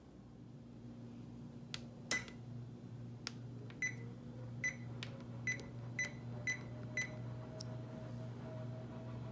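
Oven touch control panel beeping as its buttons are pressed: a few sharp taps, then six short beeps about half a second apart as the bake temperature is stepped up from 350 to 375 degrees. A low steady hum runs underneath.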